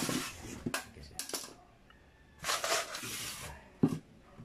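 Metal carburetor body being handled in and over a stainless steel basin: a few scrapes and clicks, a longer scraping rustle partway through, and a sharp knock near the end.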